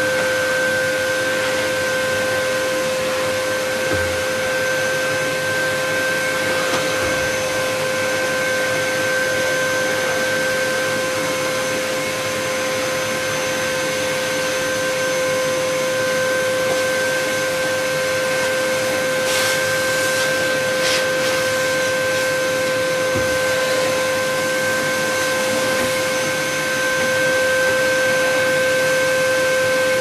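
Vacuum cleaner running steadily: a constant rush of air with a steady whine over it, and a few brief crackles about two-thirds of the way through.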